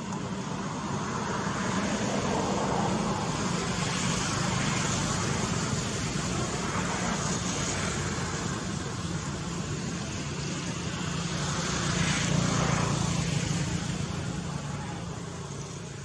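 Steady outdoor background noise, a low hum under a hiss, like distant road traffic, swelling gently about twelve seconds in.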